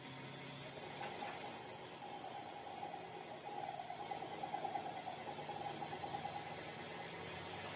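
Metal lathe cutting a welded steel truck driveshaft end: the tool bit makes a high, wavering tone over the lathe motor's steady hum. The cutting tone fades out about six seconds in, leaving the lathe running.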